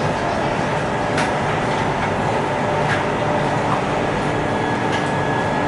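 CR400BF high-speed train running at speed: a steady rumble of wheels on rail with a steady hum from the traction motors. Sharp clicks come every couple of seconds.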